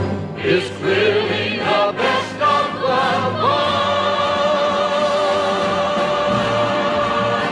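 Background music with an operatic singing voice: short notes at first, then one long note held with vibrato from about halfway through.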